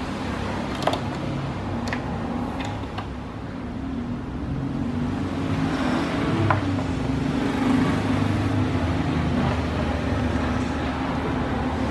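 A steady low droning hum, with sharp clicks of a child's hands on a speaker's control panel: four in the first three seconds and one about six and a half seconds in.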